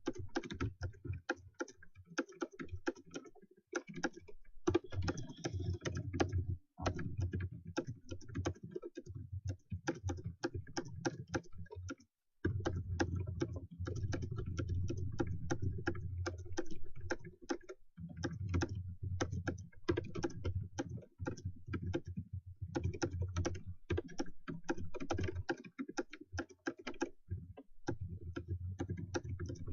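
Fast, continuous typing on a computer keyboard, a touch-typist's rapid stream of key clicks at roughly 126 words a minute, with a few short breaks.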